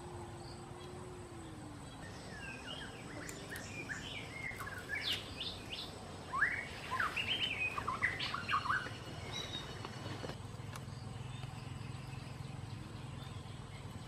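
Birds chirping in many short, quick calls that slide up and down in pitch, busiest from a couple of seconds in until about nine seconds, over a steady outdoor background hiss.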